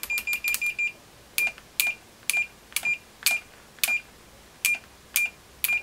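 A Fluke 117 multimeter's continuity beeper gives a short beep each time the test probe tips are tapped together. A fast run of about seven beeps in the first second is followed by single beeps about every half second. The beeper answers instantly and latches, so even the briefest touch of the probes sounds.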